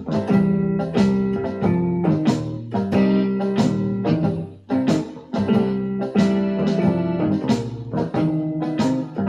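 Electronic keyboard playing a blues, chords struck in a steady, even rhythm.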